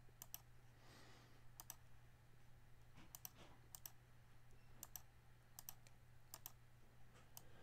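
Faint computer mouse clicks, each a quick press-and-release double tick, about nine of them spaced irregularly, over a low steady hum.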